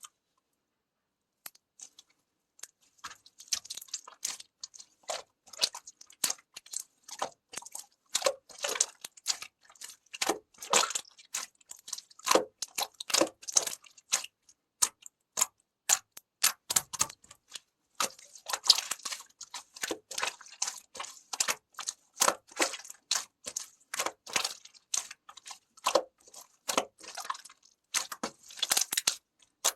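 Clay being broken and crumbled apart: dense, irregular crisp crackling and crunching clicks, starting about a second and a half in.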